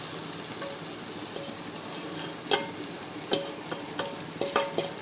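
Marinated chicken sizzling in a pan of oil and onion-tomato masala. A spatula clicks and scrapes against the metal pan several times, with short metallic rings.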